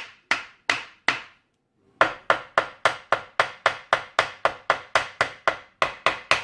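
Repeated hammer blows, each a sharp ringing metal strike, while knocking apart an NP208 transfer case. About four blows come at roughly three a second, then a pause of about a second, then a quicker, even run of strikes.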